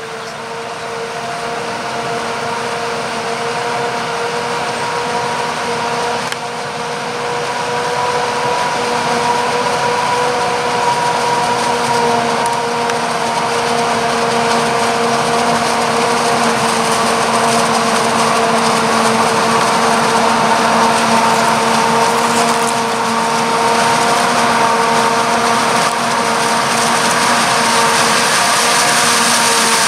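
Claas Jaguar 950 self-propelled forage harvester chopping maize, running with a steady high whine over a loud rush of machinery, the John Deere tractor and silage trailer running alongside. It grows louder as the machines come closer.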